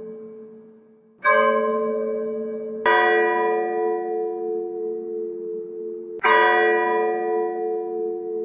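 Church bells tolling slowly for a funeral: three strikes about a second and a quarter in, near three seconds and past six seconds, each ringing on and overlapping the next. The last two strikes come from a different bell than the first.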